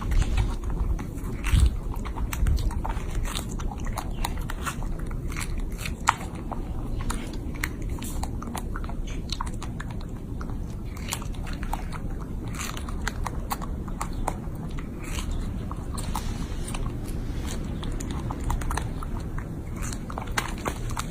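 A monkey biting and chewing food, with irregular crunches and clicks throughout over a low rumble that is strongest in the first few seconds.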